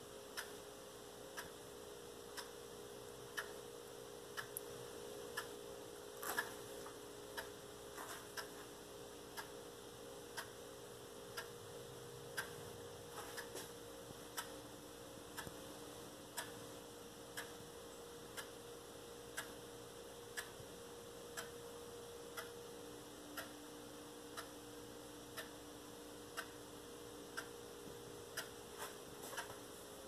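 Faint, regular ticking, about one tick a second, over a steady low hum.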